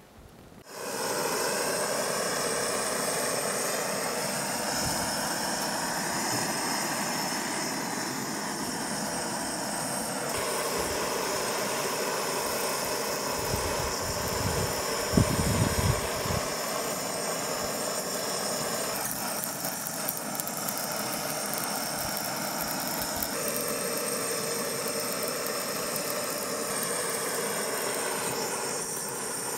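Handheld gas blowtorch flame running steadily, starting about a second in, as it is played onto a plastic telephone body. It is a continuous rushing hiss with a few shifts in tone as the flame is moved, and one short louder bump about halfway through.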